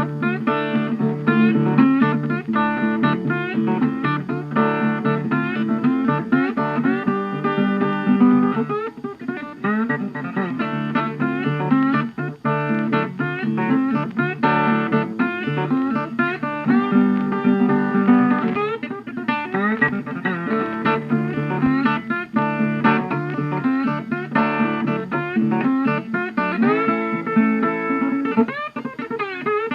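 Background music: guitar with a plucked, bluesy feel over a steady bass line.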